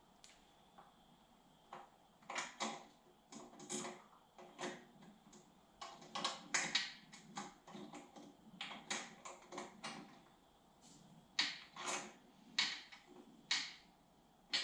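Small metal engine parts clicking and clinking irregularly as rocker-arm hardware is handled and fitted onto a cylinder head by hand.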